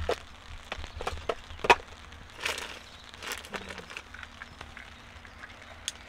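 Handling noise from plastic bait tubs and fishing tackle: a string of sharp clicks and knocks, the loudest a little under two seconds in, followed by two short rustles and a few faint ticks.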